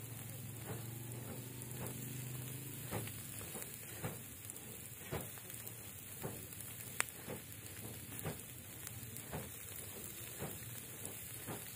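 Whole fish grilling on a wire rack over a charcoal fire: a quiet, steady sizzle with irregular pops and crackles about once a second, one sharper crack about seven seconds in.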